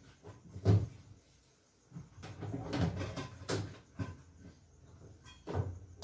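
Irregular thuds and plastic clacks as wet laundry and lids are handled at a twin-tub washing machine, the loudest knock about a second in.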